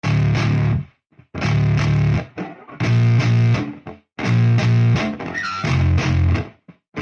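Background music: heavy distorted electric guitar and bass chords played in short stop-start stabs separated by brief gaps.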